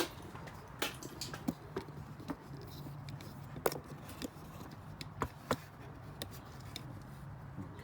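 Scattered light clicks and knocks from hands handling tools and parts, at irregular intervals over a faint low hum.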